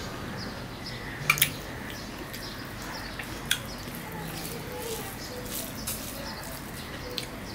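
Eating by hand: fingers mixing rice and mutton curry on a steel plate, with sharp wet clicks and smacks of chewing, a quick double click about a second and a half in and another single one about halfway.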